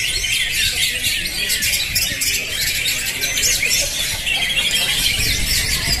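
A dense chorus of many cucak hijau (green leafbirds) singing at once, with overlapping chirps, whistles and rapid trills that never let up.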